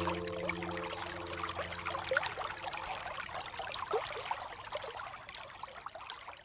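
Water trickling and bubbling, with many small quick gurgling drips, slowly fading out towards the end. Sustained soft music tones die away in the first second.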